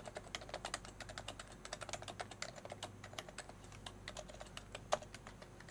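Typing on a computer keyboard: quick runs of key presses, with one harder keystroke about five seconds in.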